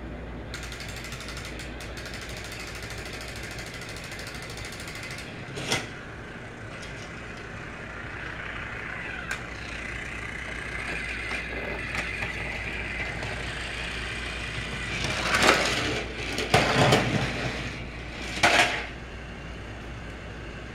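Battery-powered TrackMaster toy train's motor and gears whirring steadily as it runs on plastic track, with a short burst about six seconds in and several louder clattering bursts in the last third.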